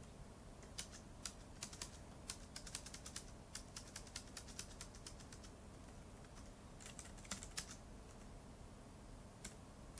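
Faint typing on a keyboard: irregular runs of quick key clicks for about five seconds, then a few scattered clicks later on.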